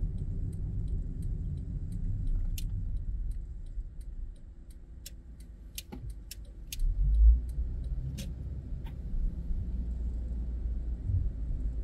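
Car running on a city street, heard from inside the cabin: a steady low road and engine rumble with scattered light ticks and rattles. A louder low thump comes about seven seconds in.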